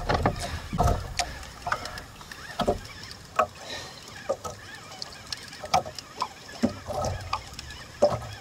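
Shimano Saragosa 10000 spinning reel being cranked to wind a hooked fish up from deep water, with water slapping against the boat's hull and irregular light knocks about once or twice a second.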